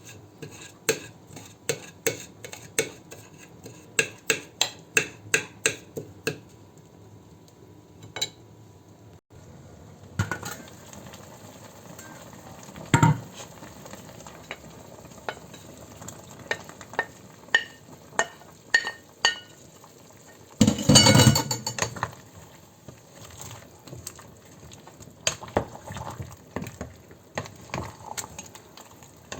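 A spoon stirring food in a cooking pot, clinking and scraping against the pot, with light sizzling. In the first six seconds the clinks come about twice a second. One louder clatter comes about 21 seconds in.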